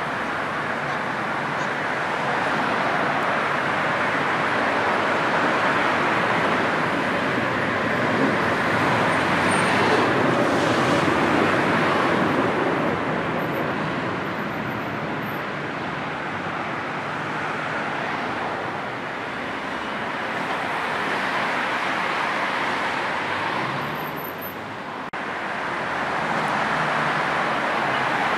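Dense motorway traffic: a steady rush of car and van tyres and engines passing, growing louder about ten seconds in and easing briefly near the end.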